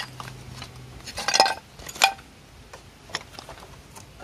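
Clay roof tiles and broken tile shards clinking and scraping against each other as they are shifted about. There is an irregular scatter of sharp clinks, the loudest about a second and a half and two seconds in.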